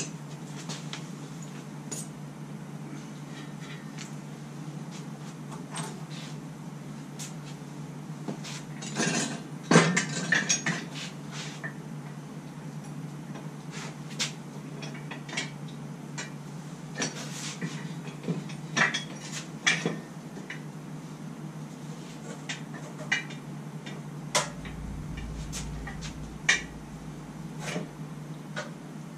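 Scattered metal clinks, clanks and knocks of an engine and its steel engine stand being handled and worked into position, with the loudest cluster of clanks about nine to ten seconds in. A steady low hum runs underneath.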